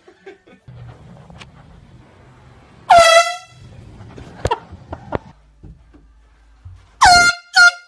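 Handheld air horn blasted three times: one blast about three seconds in, then two short blasts in quick succession near the end.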